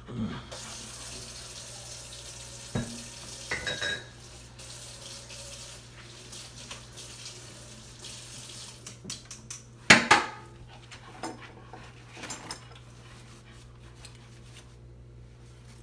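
Kitchen tap running into a sink while metal tongs are rinsed, with clinks and knocks of utensils and dishes and one loud clatter about ten seconds in.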